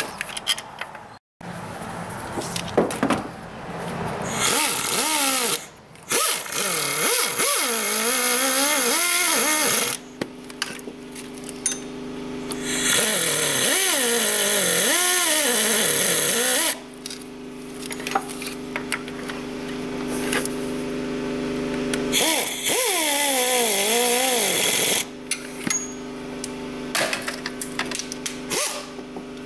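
Pneumatic air ratchet running in the new water pump's bolts in several bursts of a few seconds each. Each burst is a hissing whir whose pitch rises and falls as the bolt spins in and snugs up.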